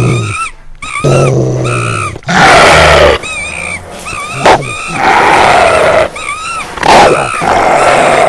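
Horror sound effects: loud animal-like growls and roars, broken up by short repeated wavering tones.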